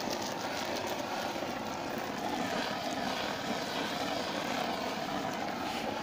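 Brass kerosene pressure blowlamp burning with a steady rushing noise, used to shrink the heat-shrink parts of an 11 kV XLPE cable termination.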